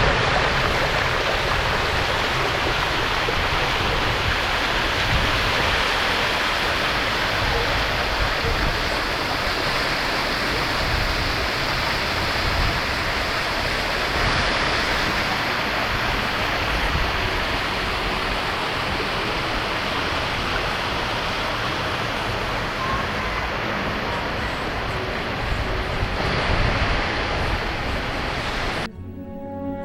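Waterfall over 30 m high pouring into a pool: a steady, loud rush of falling water. It cuts off near the end as music comes in.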